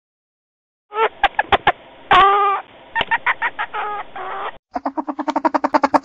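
Polecat calling: a run of short pitched calls and squeaks with clicks between them, then, near the end, a fast even chattering of about ten pulses a second.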